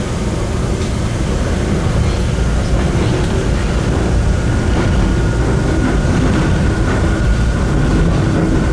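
An Enoden electric train running along the track, with a steady rumble of wheels and running gear heard from inside the front car. A faint, thin whine grows clearer about halfway through.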